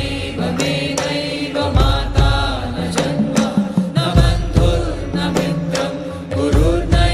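Devotional chant-style singing with instrumental and percussion accompaniment, performed live. A deep bass beat lands about every two and a half seconds under quick percussive strokes.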